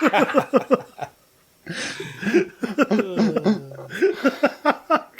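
Voices laughing and vocalizing without clear words, broken by a short pause about a second in.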